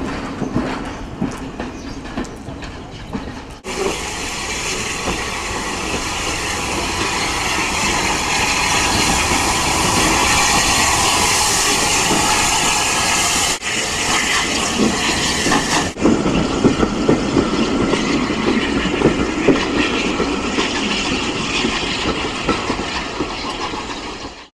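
Bulleid light pacific steam locomotive 34070 Manston, a Battle of Britain class engine, and its train of coaches. First the coaches rattle past with wheels clattering on the rails. Then comes a long steady hiss of escaping steam, then the train working along with clatter and repeated knocks.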